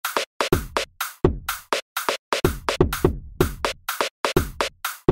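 Background electronic music built on a drum-machine beat, with punchy kick drums and crisp hits in a steady rhythm.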